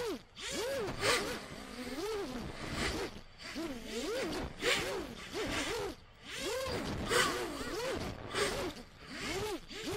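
GEPRC EF10 ten-inch FPV quadcopter in flight, its motors' whine rising and falling in pitch about once a second as the throttle is worked, with short bursts of rushing air. The cheap no-name motors run without the harsh oscillation noise heard earlier, since the PID gains have been turned down.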